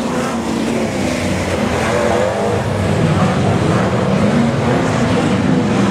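Several super saloon speedway race cars running on a dirt oval, their engines loud and continuous, with the pitch rising and falling as they accelerate and lift around the track.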